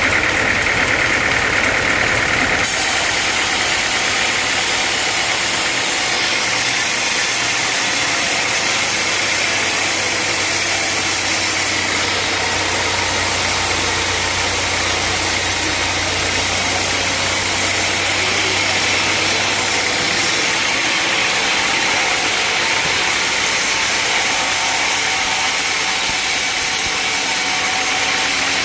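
Sawmill machinery running steadily, loud and continuous, with a shift in tone about two and a half seconds in and a low hum through the middle stretch.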